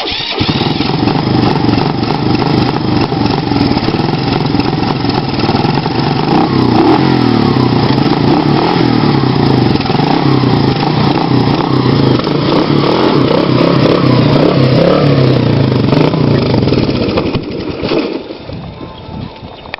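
Four-wheeler engine running close by, its revs rising and falling as it is ridden. It drops away sharply about 17 seconds in.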